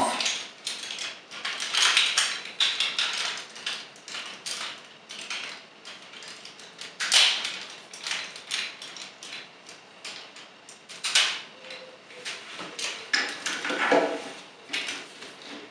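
Hard plastic parts of a Transformers Megatron action figure clicking and rattling as it is handled and a loose piece is snapped back on, with several sharper snaps among the lighter clicks.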